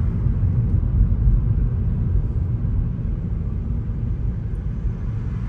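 Steady low rumble of a car driving on a city street, heard from inside the cabin: engine and tyre noise.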